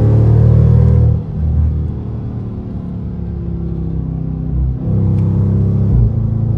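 Dodge Charger R/T's 5.7-litre HEMI V8 engine and exhaust heard from inside the cabin, cruising at a steady engine speed. It runs loud under throttle for about the first second, drops back to a softer drone, then swells loud again about five seconds in.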